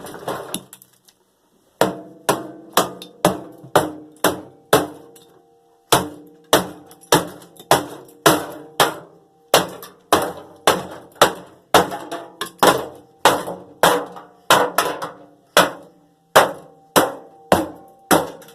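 Hammer blows on metal, about two strikes a second, each leaving a ringing tone, with a short pause about five seconds in. The hammer is being used to beat apart the sheet-metal parts of a scrapped microwave.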